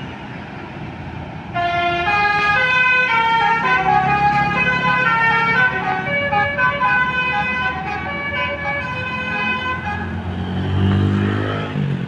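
Tour bus's telolet (basuri) musical air horn playing a fast, stepped multi-tone melody for about eight seconds, starting a second and a half in. Near the end a low engine note rises.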